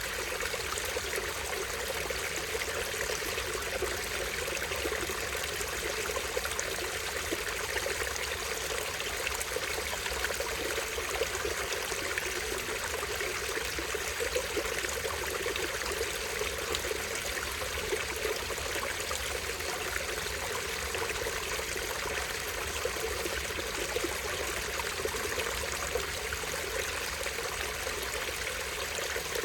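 Small stream splashing over a tiny waterfall: steady rushing and trickling water.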